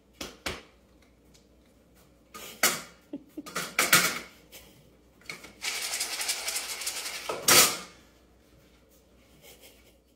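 A squeeze bottle of salad dressing being handled and squirted onto dry dog kibble in a metal bowl: a few clicks and clattering knocks, then a steady spurting hiss lasting about two seconds that ends in one loud sputter.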